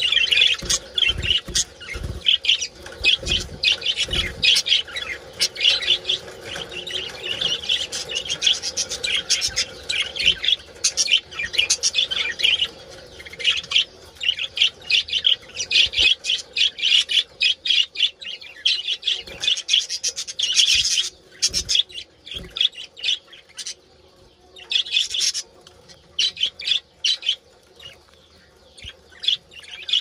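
A breeding colony of budgerigars chattering and warbling, a dense stream of rapid chirps and squawks, the courtship chatter of budgies. About two-thirds of the way through it thins to scattered bursts of chirps with short pauses.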